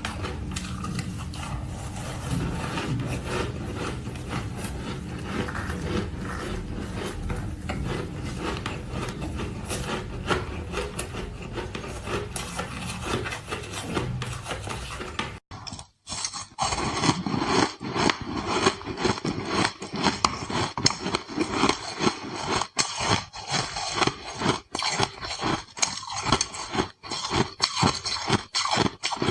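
A steady rough scraping and rubbing noise with a low rumble. It breaks off suddenly about halfway through and gives way to a fast, irregular run of loud crunches: ice being bitten and chewed close to the microphone.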